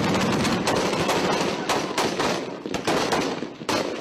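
Sustained automatic gunfire: a rapid, dense string of shots that thins into separate shots in the last second or so.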